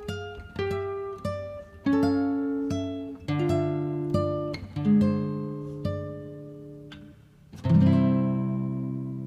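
Acoustic guitar music: a slow run of plucked single notes and small chords, each ringing and fading, then a fuller strummed chord a little before the end that is left to ring out.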